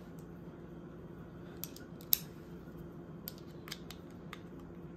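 A handful of small, sharp metallic clicks, the loudest about two seconds in, as a Torx driver bit is swapped into a screwdriver and fitted to the knife's screws. They sit over a low steady hum.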